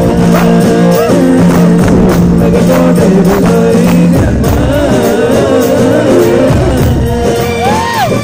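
Music with a singer's voice over sustained accompaniment; near the end the voice holds one long note that bends up and falls back.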